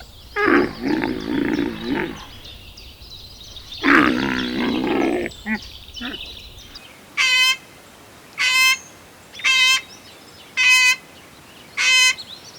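Animal calls: two longer, lower calls in the first half, then a run of five short, high, evenly spaced bird-like calls, about one a second.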